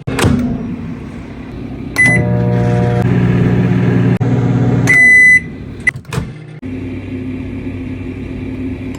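Microwave oven heating: a short beep as it starts, then its steady hum for about three seconds, ended by a longer beep as it stops. A knock comes first, two clicks follow the end beep, and a different steady hum runs on afterwards.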